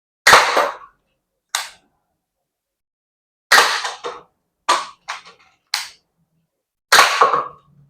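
Green-gas-powered replica flintlock pistol firing steel BBs: three sharp gas-blowback shots, about three and a half seconds apart, with several smaller clicks in between.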